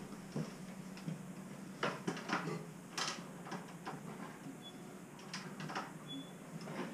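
Light clicks and knocks, about half a dozen scattered over several seconds, from a trials motorcycle being handled while its engine is not running.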